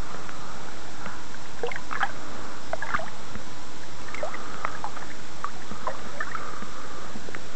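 Shallow lake water splashing and trickling in small, irregular bursts around a carp being released and swimming away, over a steady hiss.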